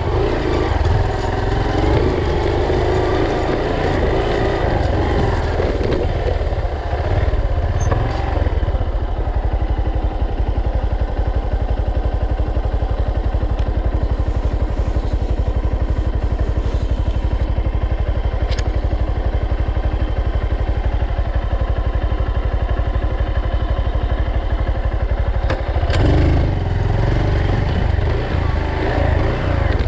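Honda Bros trail motorcycle's single-cylinder four-stroke engine running, heard close to the mud-covered rear wheel. The engine note is busier and louder at the start and again near the end, with a steady low beat between.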